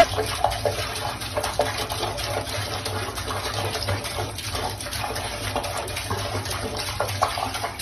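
Water running from a sink tap and splashing into the basin, a steady rush with irregular splashes as a cat's paw breaks the stream.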